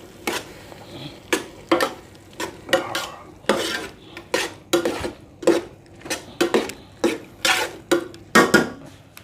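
A cooking utensil stirring vegetables in a pan, clinking and scraping against the pan about twice a second, with a faint sizzle.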